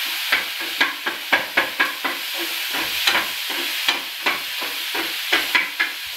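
A spatula stirs chopped tomatoes and green chilli frying in oil in a small black frying pan on a gas stove, cooking the tomatoes soft for a rasam base. Irregular scrapes and taps against the pan come about two a second over a steady sizzle.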